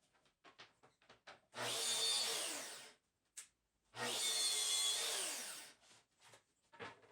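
A power tool run twice on wood, each run about a second and a half long, its pitch falling as it winds down; light knocks and clicks of handling before, between and after.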